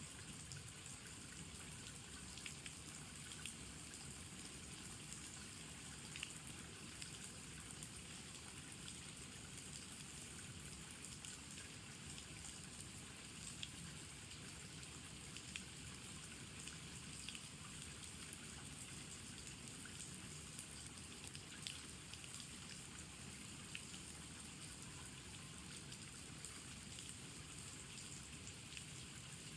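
Steady rain falling, with single drops now and then tapping a little louder than the rest.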